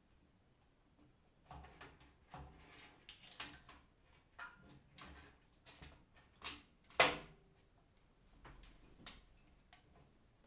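Scattered light clicks and knocks of computer parts and a PC case being handled during assembly, loudest as two sharper clacks a little past halfway.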